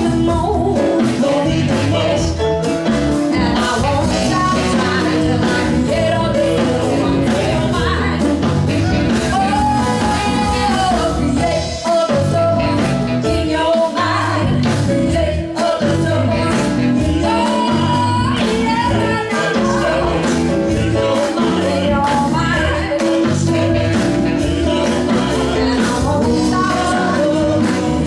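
Live band playing: women singing lead and harmony over drums, electric bass, guitar and saxophone, with a steady beat.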